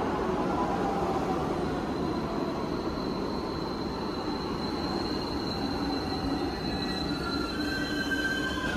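New York City Subway 6 train of R62A cars pulling into an underground station and braking: a steady rumble of wheels on rail, with a high, steady squeal coming in about two seconds in as it slows. Near the end, several more high squeals join in as the train comes nearly to a stop.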